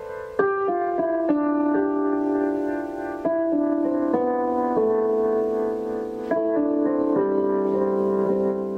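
Slow, calm keyboard music in a piano-like tone: notes and chords struck one after another and left to ring in a gentle, unhurried melody.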